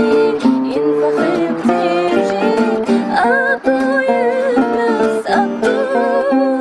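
Amazigh song: a plucked-string accompaniment, with a voice singing long wavering notes from about three seconds in.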